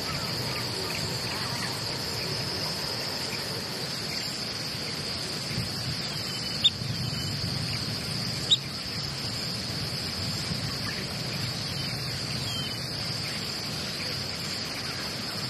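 Steady high-pitched chorus of insects such as crickets, one even shrill tone, over a low background rumble. Two sharp clicks stand out, about halfway through and again two seconds later.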